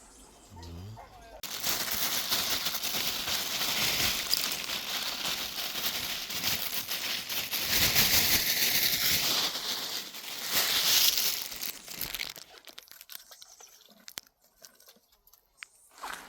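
Loud rustling full of fine crackles, starting about a second and a half in and stopping abruptly about ten seconds later; faint scattered ticks follow.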